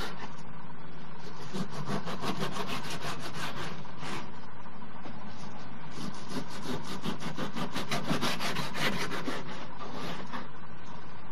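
Kitchen knife chopping thin-sliced pork on a plastic cutting board. The blade taps the board in quick runs of about five strokes a second, with short pauses between runs.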